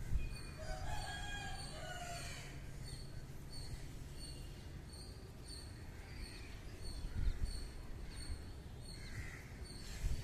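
A bird call lasting about two seconds, starting about half a second in, over a steady low rumble.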